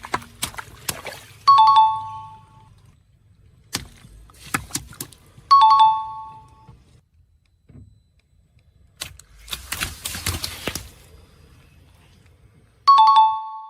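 Bursts of cracking and crunching as objects are crushed under a car tyre, three times. A two-note falling 'ding-dong' chime sounds three times: shortly after the first two bursts and again near the end.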